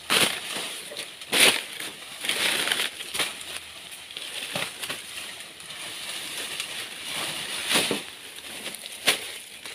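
Dry banana leaves crackling and rustling as they are crushed and brushed against, with irregular sharp snaps, about five louder ones spread unevenly.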